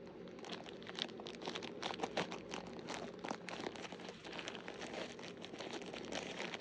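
Plastic or paper packaging being crinkled and torn open by hand, a quick run of irregular crackles.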